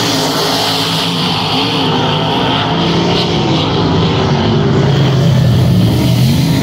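Several dirt-track race car engines running at racing speed as the cars lap the track. The pitch rises and falls as they accelerate and lift through the turns.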